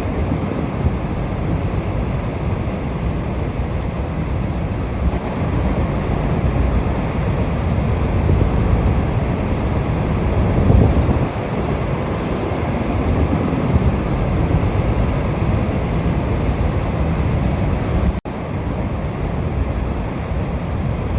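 Steady rushing roar of the Niagara Falls waterfall, heavy in the low end, with wind buffeting the microphone. It breaks off for an instant about 18 seconds in.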